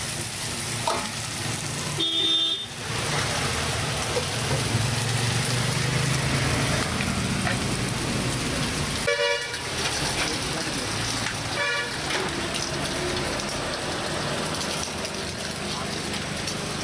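Steady street traffic noise with vehicle horns honking: a short toot about two seconds in, and more honks around nine and twelve seconds in.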